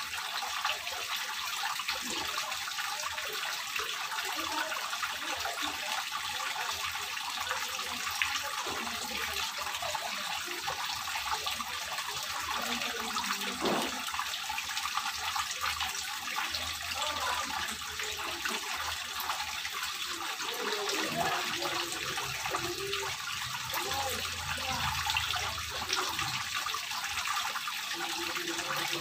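Water from a ribbed stone wall fountain running down its face and splashing steadily into a small terrace pond.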